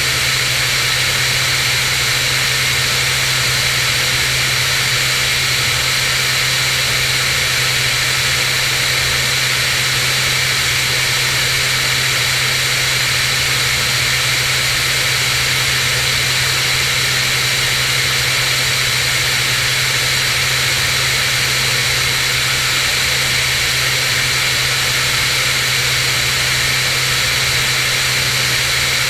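Cirrus SR22's six-cylinder piston engine and propeller droning steadily in flight, with an even hiss of rushing air over it.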